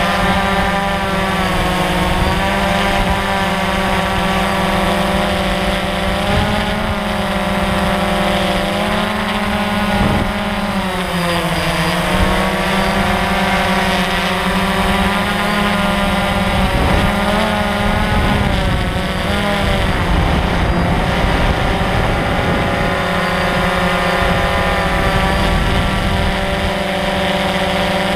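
DJI Phantom quadcopter's four electric motors and propellers buzzing in flight, heard close up from the camera the drone carries. The pitch of the whine shifts up and down as the motors speed up and slow to steer.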